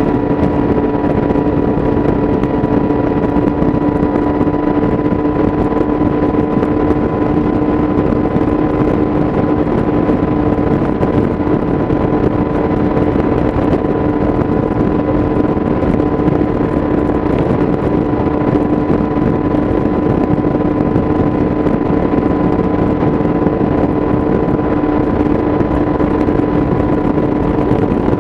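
2017 Yamaha YZF-R6's inline-four engine through an Akrapovic exhaust, running at a steady high engine speed while cruising, with no shifts or rev changes.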